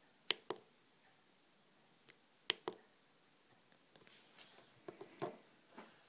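Small plastic clicks from a hand working a thumbstick joystick module: two quick pairs of sharp clicks, then softer handling rustles and a few light clicks near the end.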